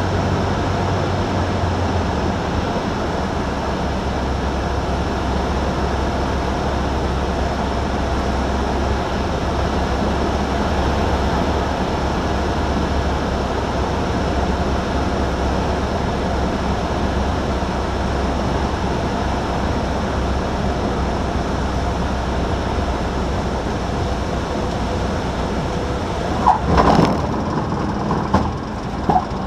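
Piston engine of a high-wing single-engine light aircraft running steadily on final approach, heard inside the cabin; its note drops about two seconds in as power comes off. Near the end, short tyre squeaks as the wheels touch down on the runway.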